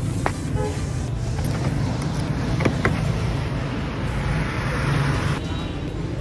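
Car and street traffic noise, a steady low rumble, with a few sharp clicks near the start and around three seconds in. The traffic hiss swells about four seconds in and drops off sharply after five.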